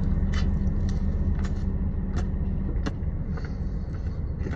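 Chewing with a big mouthful of chips and queso, with a short sharp crunch every half second to second, over a steady low rumble.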